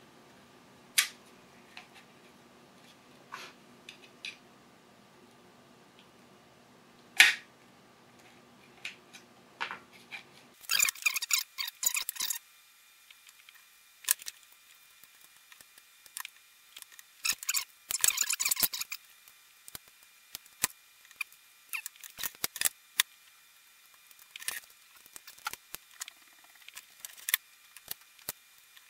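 Scattered clicks and clinks of hand tools and small copper pieces being handled on a worktable, as copper is cut with tin snips and worked with pliers. There is one loud click about seven seconds in, and short runs of quick clicks about eleven and eighteen seconds in.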